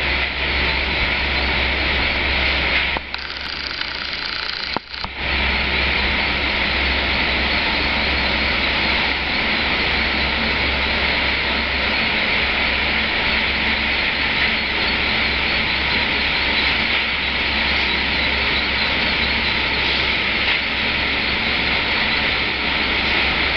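Steady din of a pet-food pellet loading and bagging plant running: machinery with a constant low hum under a hiss of pellets flowing through chutes. It thins briefly a few seconds in, then returns.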